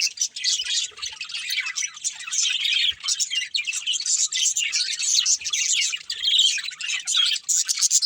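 Several budgerigars chirping and warbling together in a continuous, busy chatter of quick high chirps.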